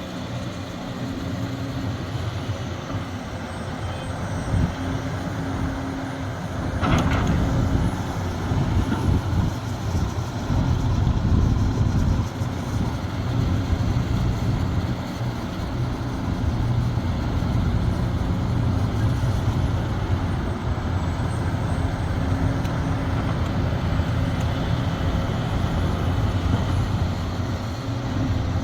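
Diesel engine of a Sumitomo SH370LHD-6 hydraulic excavator running steadily under load. About seven seconds in there is a brief sharp noise, and the engine runs louder after it.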